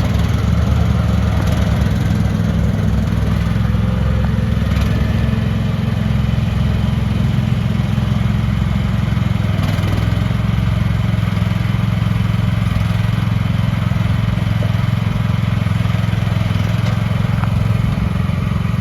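Small gasoline engine of an AGT H15 mini excavator running steadily, with a couple of faint knocks.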